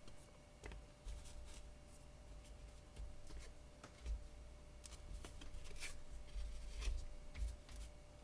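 Hockey trading cards being handled and slid from one to the next: faint, scattered rustles and light taps of card stock.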